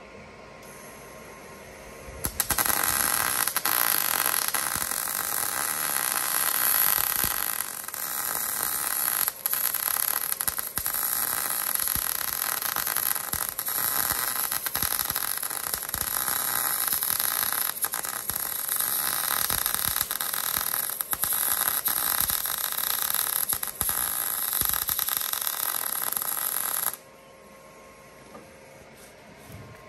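MIG welder arc crackling steadily as a bead is laid on a steel chassis rail. It starts about two seconds in, breaks off for a moment a few times, and stops abruptly near the end.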